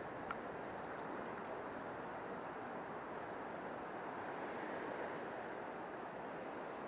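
Shallow river running over stones and weed, a steady rushing, with one small click about a third of a second in.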